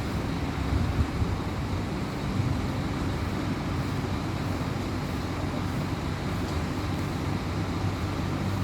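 Steady low rumble of motor-vehicle traffic, an engine running with no horn sounding.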